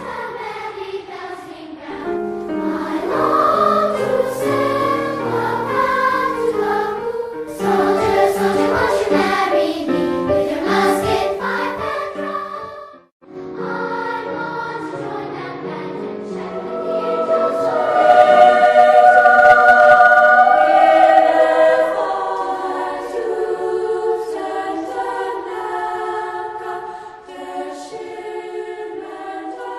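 A choir singing held, sustained chords. It breaks off briefly about halfway through, then comes back and swells louder before easing down.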